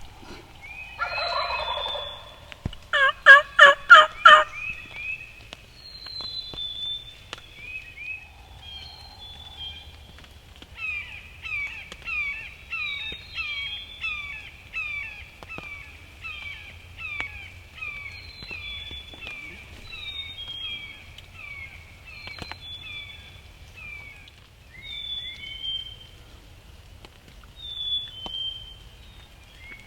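Wild turkey gobbling about a second in, followed by a loud run of about six evenly spaced yelp-like notes. Songbirds chirp through the rest, one repeating a short high note about twice a second for a long stretch.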